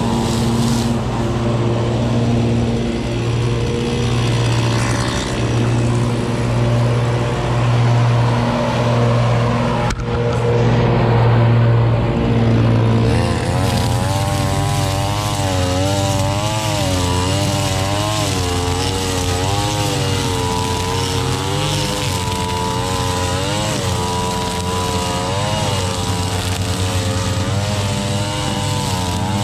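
Gas string trimmer engines cutting thick overgrown grass: a steady engine drone for about the first 13 seconds, then a trimmer revving up and down again and again as the throttle is worked through the heavy grass.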